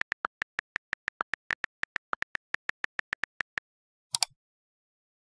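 Computer keyboard typing sound effect: a quick, even run of about two dozen keystroke clicks, one per letter typed, then a single mouse click on the search button about four seconds in.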